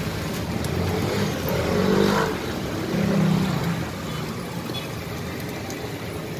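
Street traffic noise from passing cars and motorbikes: a steady low rumble that swells briefly about two and three seconds in.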